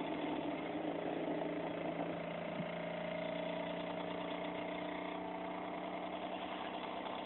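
A homemade generator rig running steadily: a 12-volt DC motor spins a magnet flywheel rotor past a bifilar coil, making a steady whirring hum of several held tones.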